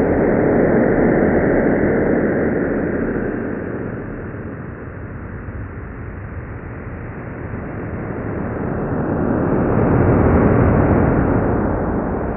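Sonification of the Event Horizon Telescope image of Sagittarius A*, the Milky Way's central supermassive black hole: a dense, low wash of noise. Its loudness follows the brightness around the ring as a radar-like sweep turns clockwise, so it is loud at first, dips around the middle, and swells again near the end.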